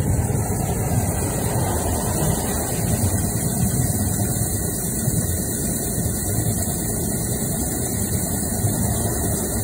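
High-pressure drain jetter running steadily, jetting water through a drain pipe clogged with iron and calcium scale.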